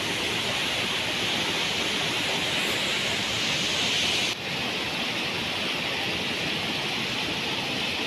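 Waterfall and rocky stream rushing, a steady, dense hiss of falling and tumbling water that dips briefly a little past the middle.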